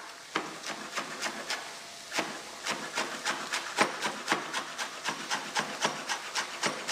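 Chef's knife chopping fresh herbs on a wooden cutting board: the blade knocks on the board, a few spaced strokes at first, then a quick even run of about four a second.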